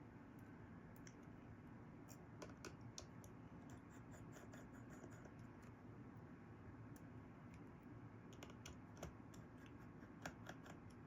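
Faint scattered clicks and scrapes of a small tri-point screwdriver working tiny screws out of the metal bracket inside an iPhone 11 Pro, over quiet room tone.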